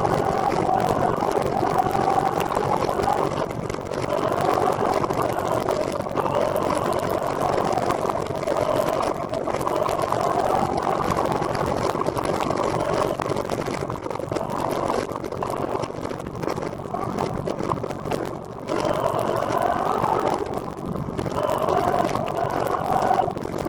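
Steady rushing road noise and whir while riding a recumbent trike, with a faint hum that drifts up and down in pitch and dips briefly twice near the end.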